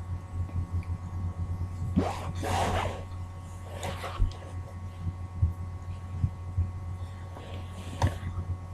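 Laptop parts being handled in a teardown: a few soft rustling swishes and light clicks over a steady low hum.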